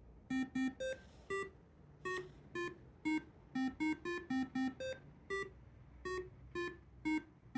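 Homemade Verilog digital alarm clock going off at its set alarm time: a tune of short beeped notes at changing pitches, two to three notes a second.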